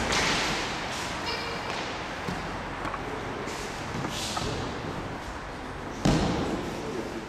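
Bodies being thrown and landing on tatami mats with dull thuds, amid shuffling on the mats; the loudest, heaviest thud comes about six seconds in.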